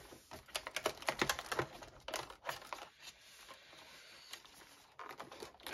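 Fingers picking and prying at a stiff cardboard advent calendar door that is hard to open: a run of small clicks and scratches, densest in the first two and a half seconds, with a few more near the end.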